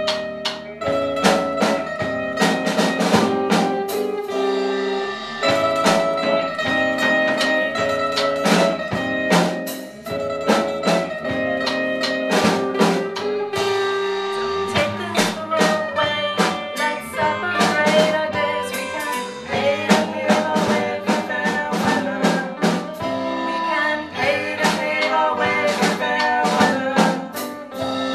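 Live rock band playing a song: a drum kit keeping a steady beat under electric guitar, bass guitar and strummed acoustic guitar.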